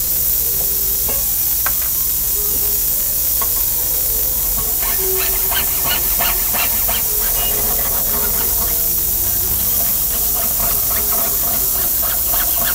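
Jeweler's saw cutting a sheet-metal pendant on a bench pin: short, even strokes about three a second from about five seconds in, with a few single clicks before. A steady hiss lies under it all.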